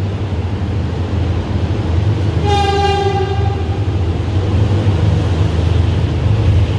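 Steady low rumble in a rail station concourse, with one short horn-like tone lasting under a second about two and a half seconds in.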